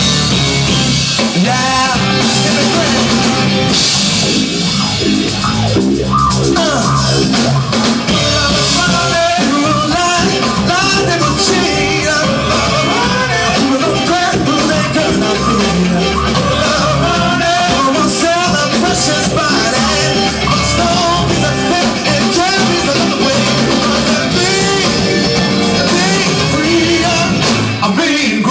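Live funk band playing a groove with electric bass and drum kit, and a male singer's voice over it, loud and continuous.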